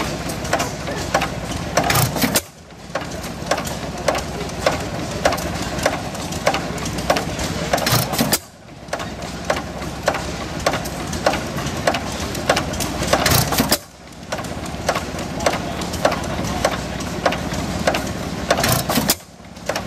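Vintage horizontal stationary engine running unloaded: a loud firing stroke about every five to six seconds, with a steady clicking of its valve gear and igniter about twice a second as it coasts between firings.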